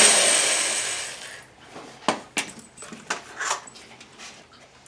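Corded drill with a countersink bit cutting into a wooden cabinet face frame, winding down and stopping within the first second or so. A few light clicks and knocks follow as the drill and bit are handled.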